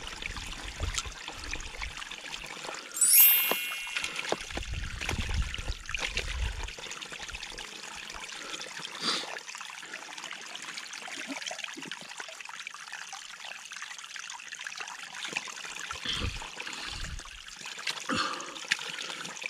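Water from a snowmelt-fed spring running out of a pipe, trickling and splashing into a plastic trough. A short, high ringing sound stands out about three seconds in.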